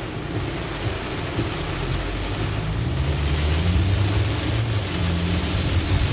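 Heavy rain falling on a car's roof and windshield, heard from inside the cabin, over the low drone of the engine and tyres on the wet road. The drone grows louder about three seconds in.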